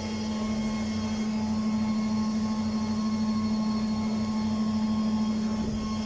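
A steady mechanical hum with a low steady tone and a slight regular pulse, from a machine running continuously.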